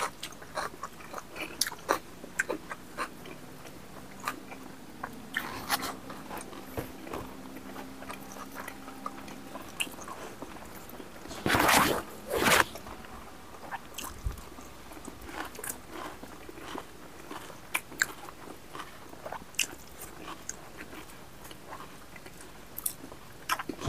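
Two people chewing and biting pork and rice eaten by hand, with small crunches and wet mouth smacks throughout. Two louder noisy bursts come about halfway through.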